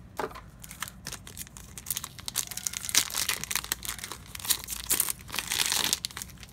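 A trading-card booster pack wrapper being torn open and crinkled by hand, a run of sharp crackles with a longer tear near the end.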